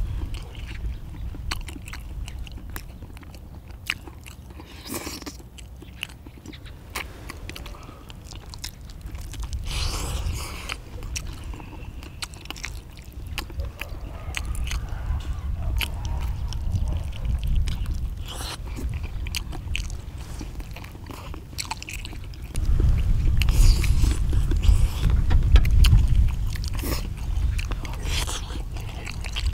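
People chewing and biting into pieces of spicy braised chicken and beef large intestine, with short clicks as chopsticks touch the bowls. A low rumble underneath grows louder about three-quarters of the way in.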